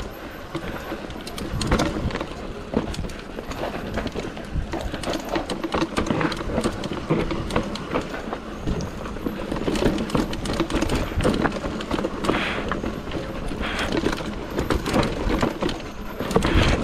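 Inside a car driven fast on a rally stage: dense, irregular clattering and knocking from the car and the road surface over its steady running noise.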